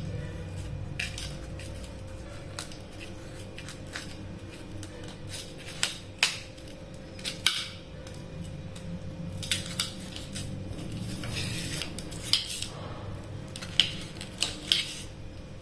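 Knife chopping and slicing a chayote (chow chow) on a cutting board: irregular sharp cuts at uneven spacing, a few of them much louder, over a faint steady hum.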